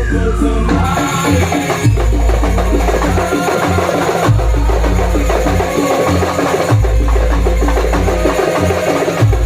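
Gamelan music for a Janger performance: rhythmic drums and struck wooden and metal percussion over deep bass tones that recur about every two seconds.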